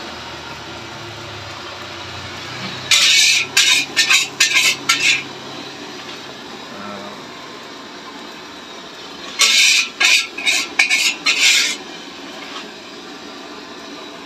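Metal spatula scraping against a metal pan as fried rice is scooped out, in two bursts of several quick scrapes, about three seconds in and again near ten seconds.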